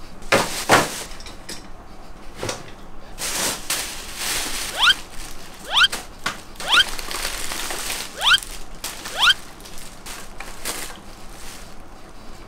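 A plastic carrier bag rustling and crinkling as things are pulled out of it. In the middle come five short rising whistle-like chirps, about a second apart.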